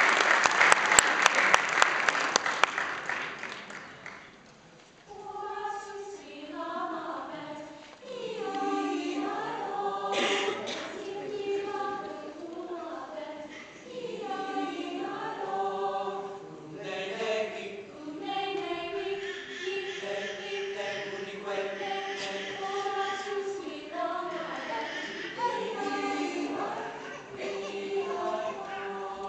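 Applause dying away over the first few seconds, then a mixed choir of young men and women begins singing in several parts.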